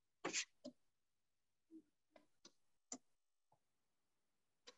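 Near silence broken by faint, scattered clicks and taps, about eight of them, the loudest about a third of a second in: a stylus tapping and stroking on a touchscreen whiteboard as an equation is written.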